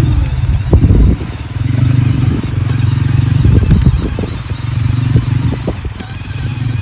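Children's quad bike (ATV) running, its motor note swelling and easing off several times, with a few sharp knocks and clatter about a second in and again later.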